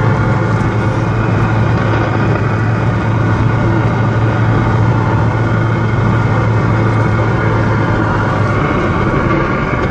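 Car AM radio hissing with steady static and a low hum, heard over the car's road noise. It is static from atmospheric electricity, which the uploader puts down to lightning.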